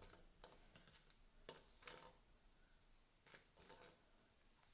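Faint, scattered clicks of loose plastic Moyu Aolong V2 speedcube pieces being picked through and handled. Otherwise near silence.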